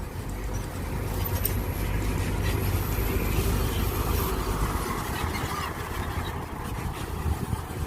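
Mini excavator's diesel engine running steadily while it digs.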